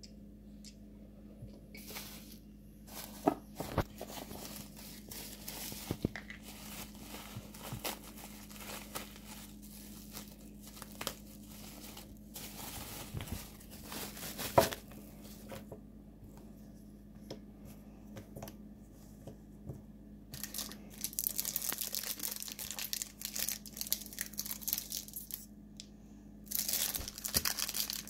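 Plastic packaging crinkling and rustling as it is handled and pulled open. There are a few sharp knocks early on, and the crinkling becomes dense and loudest in two stretches near the end.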